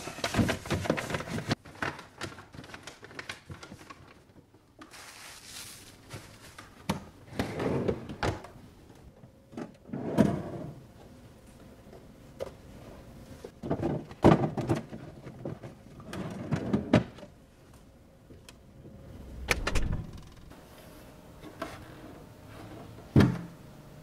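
Paper bags rustling at the start, then plastic refrigerator drawers being slid in and out and set down, with a string of separate knocks and thuds.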